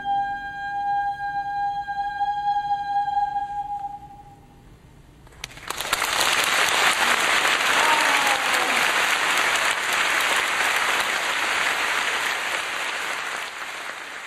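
A soprano holds a long, steady high final note, which ends about four seconds in. After a short pause the audience breaks into applause, which is the loudest sound and tails off near the end.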